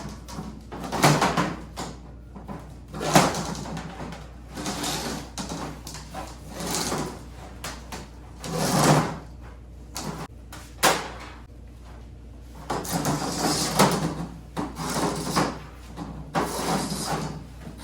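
Rubber spline being pried with a pointed tool and pulled out of the grooves of a window screen frame, freeing the old screen mesh. It comes as a series of irregular scraping pulls, each a second or so long, with a few sharp clicks.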